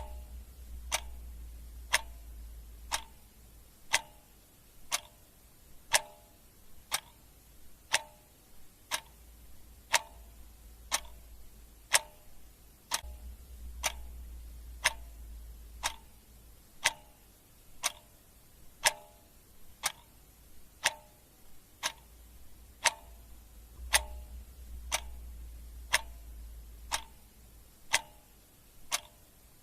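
Clock ticking steadily, one sharp tick a second, the ticks alternating slightly in tone like a tick-tock.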